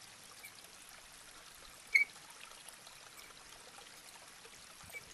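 Faint handling sounds of fly-tying thread being wrapped around a hook's head: a low steady hiss with one short, sharp tick about two seconds in.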